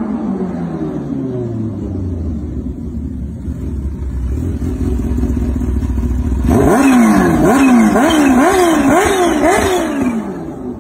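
Motorcycle engine whose note falls in pitch as it slows, then settles into a steady low rumble. From about six and a half seconds in it is revved hard about six times in quick succession, the pitch climbing and dropping roughly twice a second.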